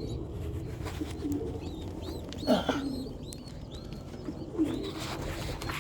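Racing pigeons in a loft cooing low, with thin, high peeping calls repeating throughout, and one louder call or flutter about two and a half seconds in.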